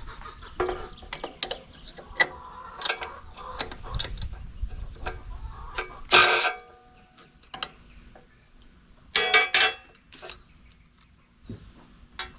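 Hand tools working on a log splitter's steel cutting wedge: a run of quick metallic clicks and knocks, with a loud ringing clank about six seconds in and two more clanks around nine seconds.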